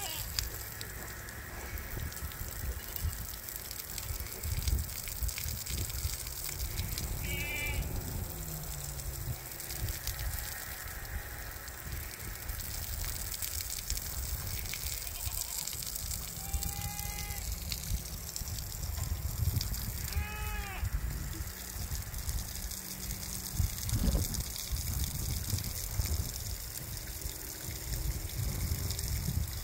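Four brief high-pitched animal calls, spread apart, over the wet sloshing of a pig rooting in a muddy wallow and a steady low rumble.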